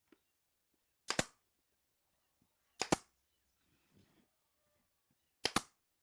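Sharp knocks of something hard striking wood, a hammer or mallet at work on the slats, in three quick double strikes a couple of seconds apart.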